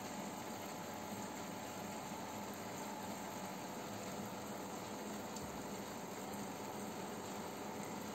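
Aquarium filter and air pump running: a steady watery hiss with a faint low hum.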